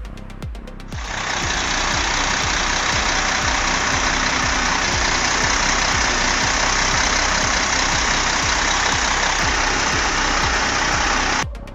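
A loud, steady engine runs over a steady low beat, and cuts out for a moment near the end.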